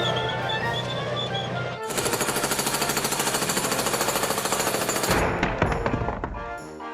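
Background music; about two seconds in, a rapid rattle of fast, evenly repeated mechanical strikes cuts in over it and stops suddenly about three seconds later.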